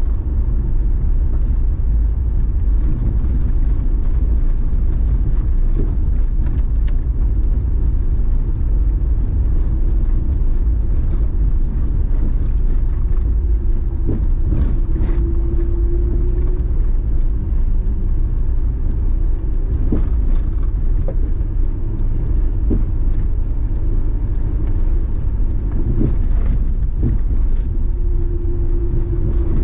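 Mercury Mountaineer SUV driving, heard from inside the cabin: a steady low rumble of engine and tyres, with a few short knocks scattered through it.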